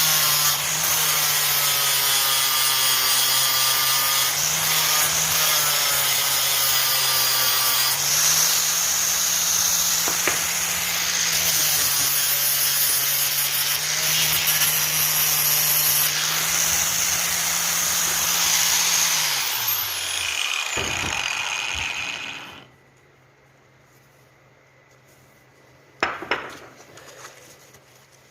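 Electric power tool running under load, a steady motor hum under a loud rasping, grinding noise, then switched off and winding down about twenty seconds in. A few sharp knocks follow near the end.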